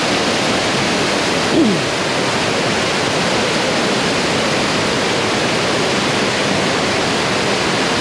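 Waterfall pouring into a plunge pool: a loud, steady rush of falling water. A short falling sound cuts through it once, about a second and a half in.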